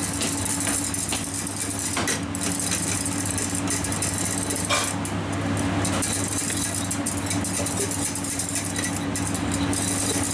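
Wire whisk stirring and knocking around a stainless steel saucepan of rice batter thickening in boiling water, with a few sharper clicks, over a steady machine hum.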